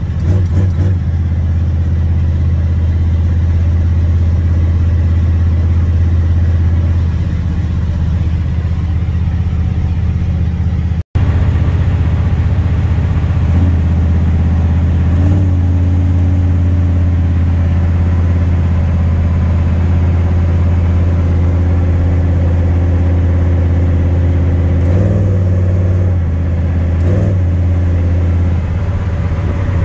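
Older pickup truck's engine and exhaust droning steadily while cruising on the highway, heard from inside the cab. The drone cuts out for an instant about a third of the way in, and its pitch shifts a couple of times near the end.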